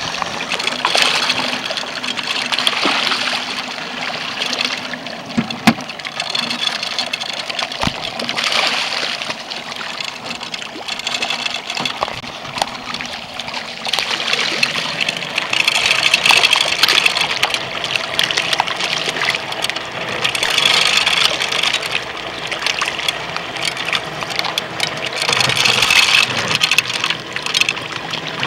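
A large group of mukashi ogon koi splashing and churning the water surface as they feed, the splashing swelling and easing in waves every few seconds.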